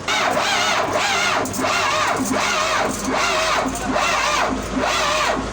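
Starter motor cranking the hard-starting diesel engine of a Komatsu road grader, its whine rising and falling in a steady rhythm as the engine turns over without catching.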